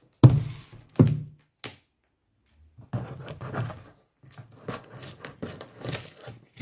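Two sharp thumps, then a few seconds of rustling and small clicks as a parcel is handled and opened by hand.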